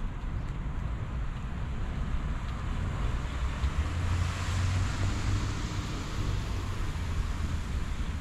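Car tyres hissing on a wet road as a vehicle passes, the hiss swelling about four seconds in and easing off. Under it runs a steady low rumble.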